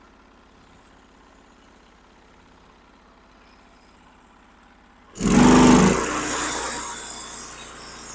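Norwood HD36 band sawmill's engine idling quietly, then revved up sharply about five seconds in, followed by a steady hissing whine as the band blade runs and the cut begins.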